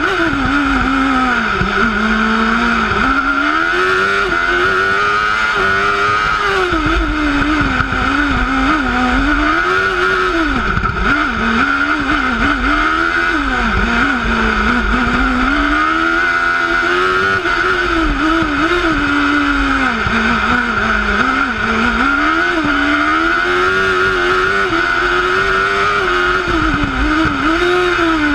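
Onboard sound of a single-seater formula racing car's engine, its pitch climbing and dropping again and again as it accelerates, shifts gear and brakes, with a steady high-pitched whine underneath.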